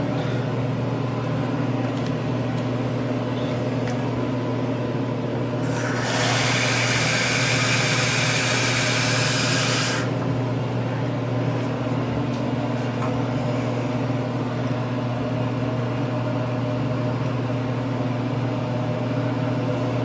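A steady low hum throughout, with a loud, even hiss that starts suddenly about six seconds in and cuts off about four seconds later.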